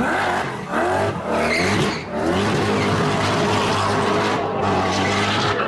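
Koenigsegg CCX's supercharged V8 revving hard with tyre squeal as the car slides and spins its rear wheels. The revs rise and dip a few times in the first two seconds, then hold steady and high as it pulls away.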